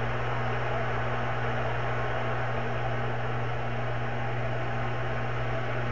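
Steady stadium crowd noise, an even wash of many voices with no single sound standing out, over a constant low hum.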